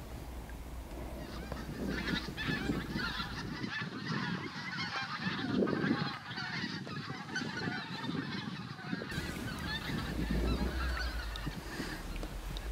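A flock of wild geese honking in flight, many calls overlapping, beginning about two seconds in and carrying on through.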